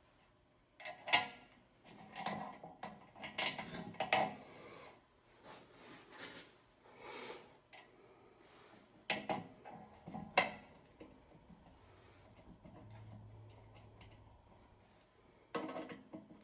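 Hand-handled objects being moved and set down: irregular sharp clicks and knocks, the loudest about a second in, and others around four, nine and ten seconds in and near the end, with rubbing and scraping between them.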